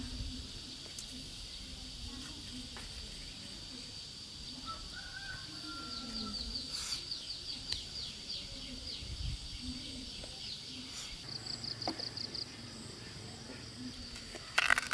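Fresh bamboo shoot being peeled by hand, with a few sharp, dry crackles of husk tearing near the end. Underneath is a steady high-pitched outdoor drone with faint bird calls.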